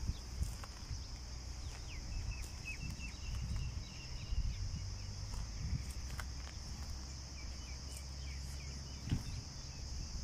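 Insects droning steadily at a high pitch, with wind rumbling on the microphone. Two runs of short high chirps come and go over the drone.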